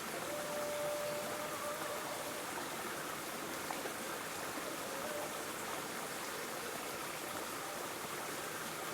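Steady rain falling, an even hiss of water with no pauses. A faint thin tone sounds briefly near the start and again about five seconds in.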